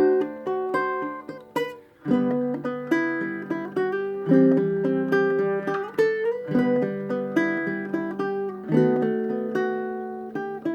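Kala SMHB all-solid-mahogany baritone ukulele being played, plucking a melody over chords, with a short break about two seconds in.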